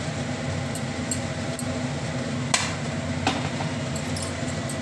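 About six light, sharp clicks and knocks against a cooking pan, the loudest a little past halfway, as fried onions are scattered by hand over layered biryani rice. A steady low hum runs underneath.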